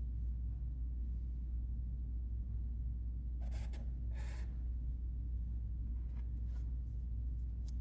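Permanent marker drawing on paper: two short scratchy strokes about three and a half and four seconds in, over a steady low hum.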